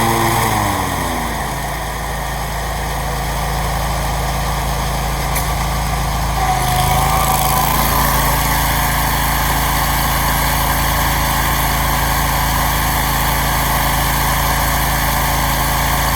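New Briggs & Stratton engine on a Scag mower running. Its speed drops over the first couple of seconds, then it runs steadily, a little louder from about six and a half seconds in.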